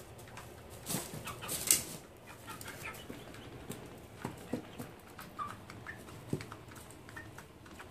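Young chickens giving a few soft chirps and clucks, with scattered clicks of pecking and scratching in pine shavings; one sharper scrape comes about two seconds in.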